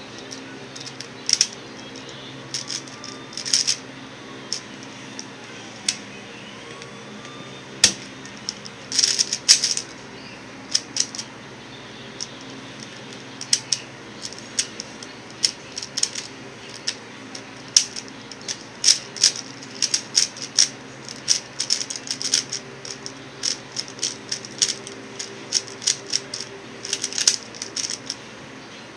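X-Man Tornado V1 3x3 speed cube being turned by hand: its plastic layers clacking in quick irregular runs, sparse at first and then in dense flurries. A steady electric fan hum runs underneath.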